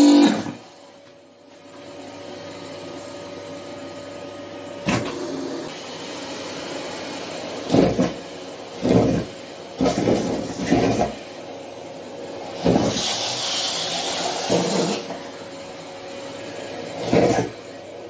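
Vacuum cleaner running with a steady motor whine, its floor nozzle pressed onto a cardboard box of latex gloves. Several short, loud surges of suction noise and a longer airy rush about two-thirds of the way through, as gloves are sucked out of the box.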